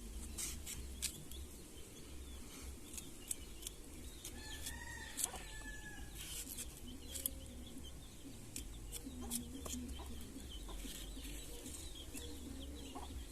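A bird calls a few times, with scattered light clicks over a steady low rumble.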